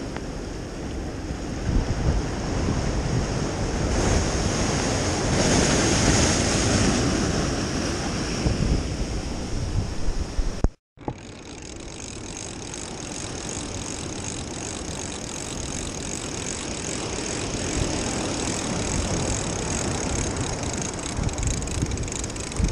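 Ocean surf washing and breaking against the rocks of a jetty, with wind rumbling on the microphone. The sound cuts out for a moment about eleven seconds in, then the surf and wind carry on.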